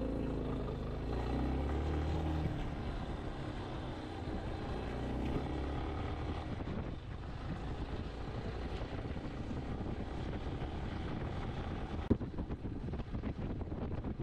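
Motorcycle engine running as the bike is ridden up a dirt track, its note rising and falling over the first couple of seconds, with wind on the microphone. A sharp knock sounds about twelve seconds in.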